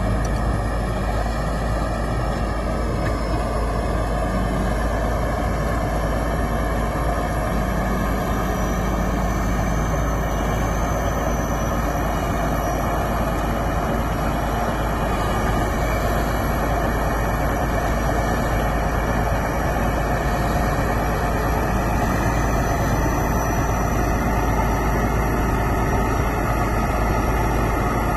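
Crawler bulldozer's diesel engine running steadily at work, a constant heavy drone that shifts slightly in pitch now and then.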